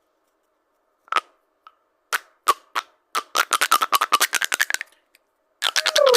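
Sharp clicks: a few single ones, then a fast rattling run of about ten clicks a second, and another fast run starting near the end.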